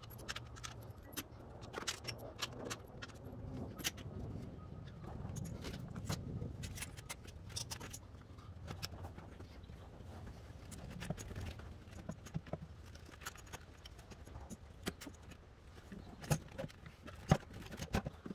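Scattered light metallic clicks and knocks of an intake manifold being handled and lowered into place on the engine, with a low rumble for a few seconds around the middle and a cluster of sharper knocks near the end.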